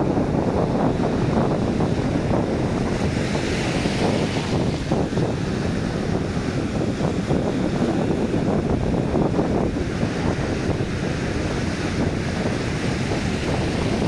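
Sea surf: small waves breaking and foamy wash running over a sandy beach, with the hiss of the wash swelling twice. Wind buffets the microphone, adding a low, fluttering rumble.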